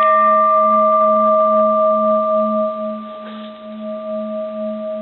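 Japanese bronze Buddhist temple bell ringing on after a single strike with an uncushioned object. A low tone with a slow, even beat and two clear upper tones sustain and slowly decay, while the higher overtones die away within the first second.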